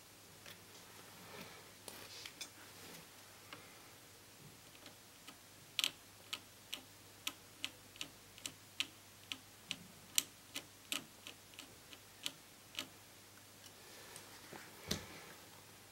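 A run of small, sharp ticks, about two a second for several seconds, with faint scratching before and after and one louder tick near the end.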